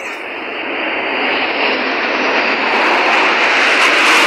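A formation of military jets, a large jet aircraft with a group of fighter jets, flying overhead. Their engine noise is a broad roar that grows steadily louder as they approach.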